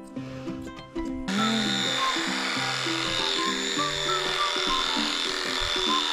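Background music, with electric pet clippers switching on about a second in and then running steadily under it with a high whine.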